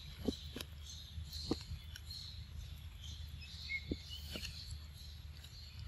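Quiet outdoor ambience: faint high chirping of birds or insects over a steady low hum, with a few soft clicks scattered through.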